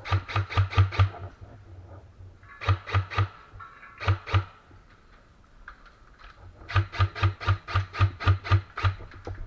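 AR-15-style airsoft rifle firing BBs in four bursts of quick even shots, about five or six a second. The last burst, near the end, is the longest.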